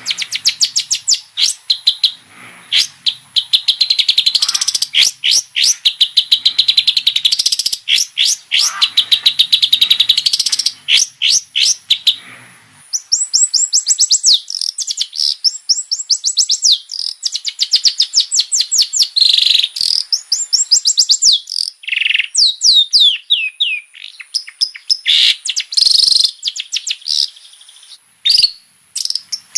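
Long-tailed shrike singing a fast, varied song: rapid runs of high chattering notes and quick sweeping phrases, broken by a few short pauses.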